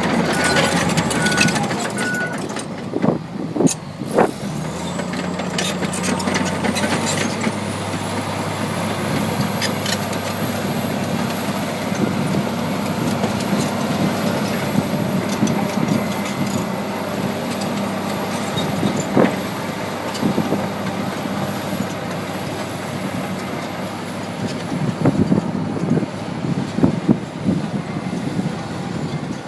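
Komatsu D65EX-15 crawler bulldozer working: its diesel engine runs steadily and picks up in pitch about five seconds in, with a thin high whine over it and occasional sharp clanks. A reversing alarm beeps evenly for the first two seconds.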